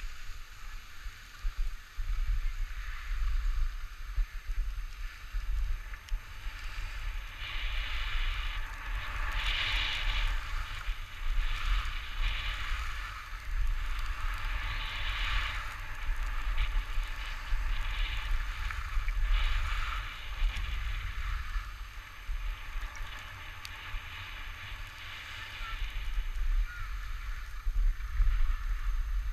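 Wind buffeting a GoPro's microphone during a ski run: a low rumble throughout. Over it, the hiss of skis sliding and scraping on snow swells and fades with the turns, loudest in the middle stretch.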